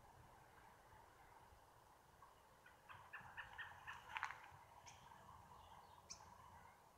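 Near-silent outdoor background with a faint, distant bird call: a rapid run of short notes about three seconds in, lasting a second or so.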